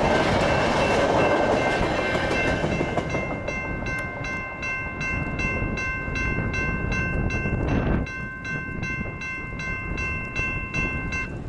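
Passenger train's bilevel cars rolling past over a grade crossing, the rumble easing after about three seconds. The crossing signal's bell keeps ringing at about three strikes a second while the gates stay down. There is a brief rush of noise about eight seconds in.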